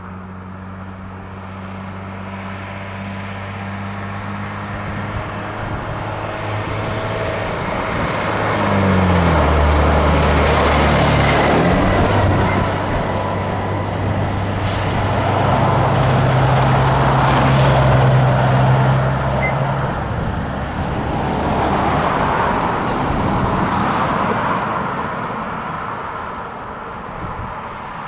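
Leyland DAF fire-service water carrier's diesel engine driving past: the engine note and tyre noise build as it approaches, drop in pitch as it passes about nine seconds in, and stay strong as it pulls away. Another vehicle's road noise swells and fades near the end.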